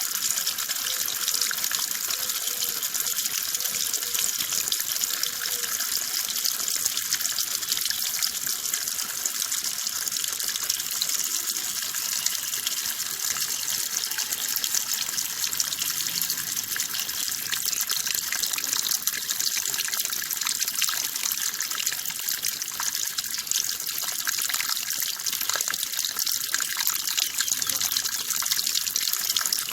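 Water running steadily, an even splashing rush with no breaks or changes.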